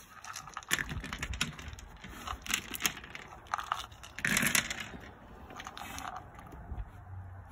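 Dry dog kibble clattering onto a rubber slow-feeder mat and a Great Pyrenees puppy crunching the pieces: a run of crisp clicks and crackles, densest a little past the middle.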